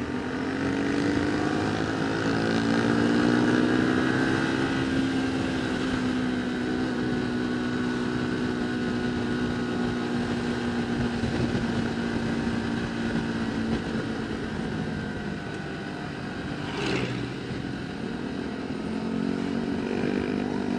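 Vehicle engine under way, its pitch climbing over the first few seconds, then holding fairly steady. The pitch dips and climbs again near the end, with one short sharp knock about seventeen seconds in.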